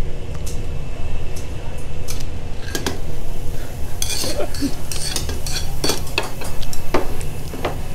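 Metal utensil scraping and clinking against a metal pan and a tabletop grill pot as cooked beef cubes are scraped out of the pan; a quick run of clatters starts about three seconds in and goes on to the end.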